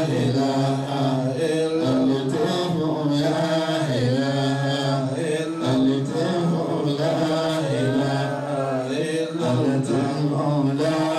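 Men's voices chanting Islamic dhikr, an unbroken melodic recitation whose pitch rises and falls in long phrases.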